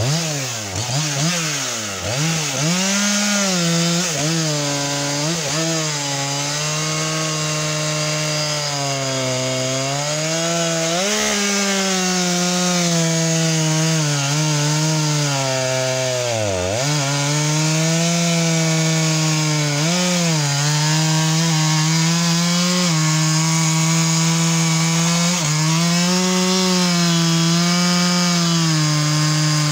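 Makita EA7300P chainsaw fitted with Stihl RS chain running at full throttle, cutting through a beech log. Its engine note swings up and down over the first few seconds, then holds steady with short dips as the chain takes load, the deepest about seventeen seconds in.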